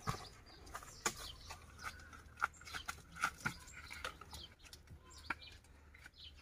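Scattered crackles and knocks of a person moving over dry leaf litter and tree roots in sandals and handling a clump of earth, with a faint drawn-out animal call in the background partway through.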